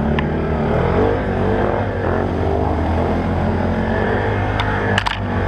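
ATV engines running, their pitch wavering up and down as the throttle changes, with a few sharp clicks near the end.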